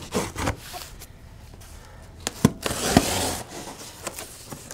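Cardboard shipping box being handled and its packing tape slit open with a blade. There are taps and thumps at the start, sharp clicks about two and a half seconds in, then a long rasping cut along the seam.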